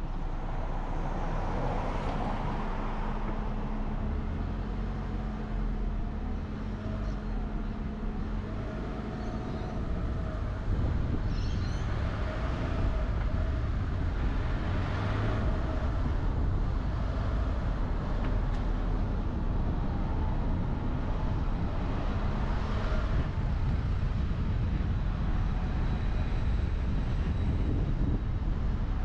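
Car driving on city roads: a steady low road and engine rumble with traffic noise, growing louder about eleven seconds in.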